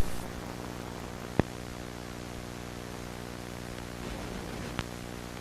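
Steady electrical hum with many overtones under a bed of static hiss, like dead air on a broadcast signal. Two sharp clicks cut through it, about a second and a half in and again near the end.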